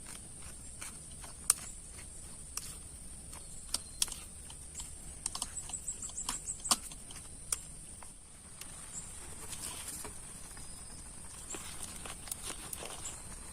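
Scattered raindrops tapping irregularly on a tent, with a quick flurry of taps about halfway through. Under them runs a steady high-pitched insect drone.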